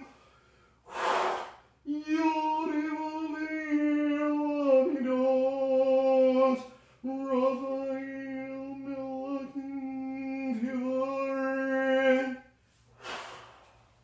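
A man's voice intoning long held notes on one steady pitch, as in the vibration of divine names in Golden Dawn-style ritual: two notes of about five seconds each, with an audible breath drawn in about a second in and again near the end.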